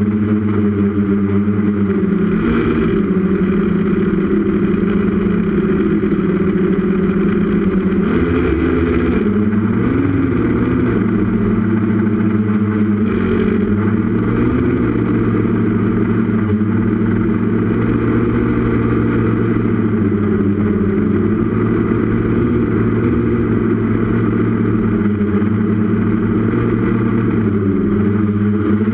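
Brushless Tiger motors and propellers of a 6S multirotor, heard from its onboard camera: a steady multi-pitched hum that wavers briefly about eight to ten seconds in as the throttle changes.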